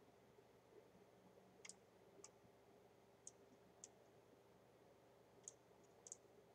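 A handful of faint computer mouse clicks a second or two apart, a couple of them in quick pairs, over near-silent room tone.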